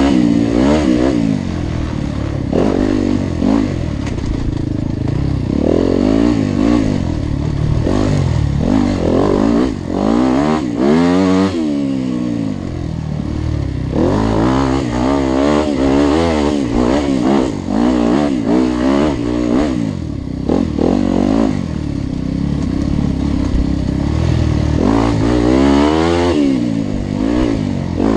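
Engines revving up and down again and again, several at once, loud throughout, with the pitch climbing and dropping in repeated sweeps.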